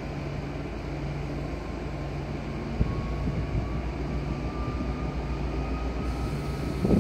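Vossloh G2000 diesel-hydraulic locomotive's engine running steadily, then about three seconds in a thump and the engine note deepens and grows louder as it is throttled up to haul a loaded freight train away, with a faint whine slowly rising in pitch.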